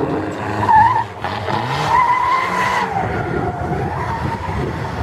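Drift cars sliding sideways in tandem, tyres squealing in a wavering howl, shortly about a second in and longest in the middle, over the sound of their engines running hard.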